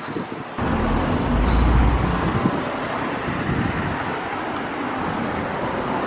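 Steady road noise of a moving car, a wide hiss over a low rumble, that begins abruptly about half a second in with a heavier low rumble for a second or so.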